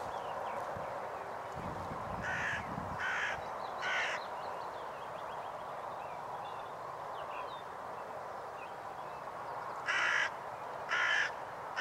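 Hooded crow cawing: three harsh caws about a second apart a couple of seconds in, then two more near the end.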